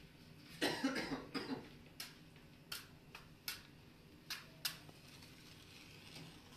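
A short fit of coughing about half a second in, followed by six short, sharp scrapes of a match struck against a matchbox over the next few seconds, to light a gas stove burner.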